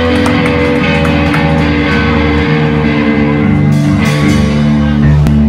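Live rock band playing loudly: electric bass, electric guitar and drum kit with cymbals.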